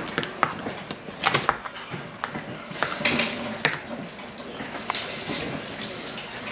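Boning knife cutting through raw whitetail deer meat and sinew along the hind-quarter bone while the muscle is pulled away by hand, with irregular small clicks and scrapes.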